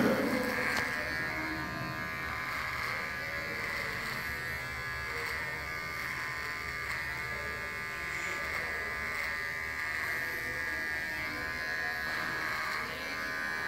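Electric hair clippers buzzing steadily as they are run along the jaw and neck, shaving off a full beard.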